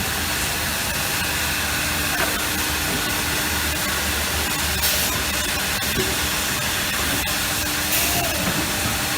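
Four-head CNC wood router running: a steady hiss with a low hum underneath.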